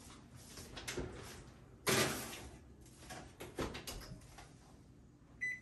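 Oven door opened and a foil-lined sheet pan slid onto the oven rack, then the door shut. There is a click, a longer scraping rush about two seconds in, and a few clunks. Near the end comes a single high keypad beep as the cooking timer is set.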